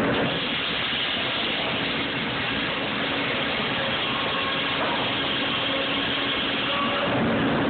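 Sawmill machinery running: a steady, dense mechanical din from saws and conveyors, with faint humming tones in it.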